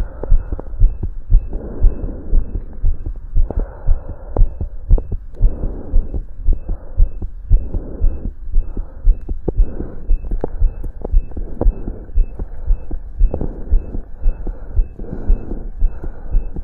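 A person's heartbeat heard through a stethoscope during exercise: quick, regular low thumps about every 0.7 s, over patches of rubbing noise that come and go.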